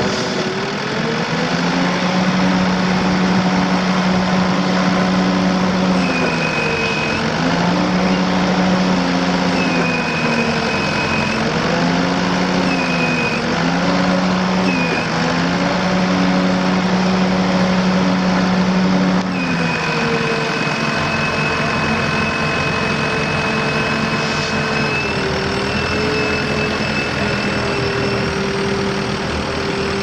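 1999 New Holland 575E backhoe's four-cylinder diesel engine running, its pitch sagging and recovering several times while a high thin whine comes and goes. About two-thirds of the way through the sound changes abruptly to steadier, slightly quieter running with the whine held.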